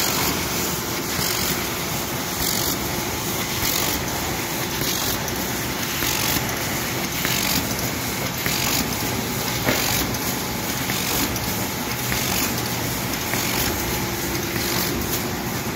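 Moll Flexcut in-line die-cutting and stripping machine running at production speed, a loud, steady mechanical clatter and hum as printed carton sheets feed through. A faint tick repeats about once a second.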